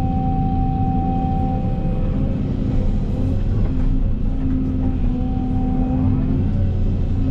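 Tracked excavator's diesel engine running steadily, with a whining tone over it that is strongest for the first two seconds and again about five seconds in.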